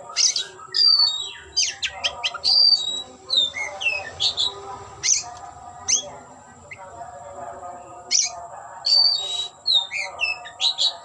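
Oriental magpie-robin (kacer) singing a varied song of short whistled notes, quick rising and falling sweeps and sharp chirps in irregular bursts, over a faint steady high whine.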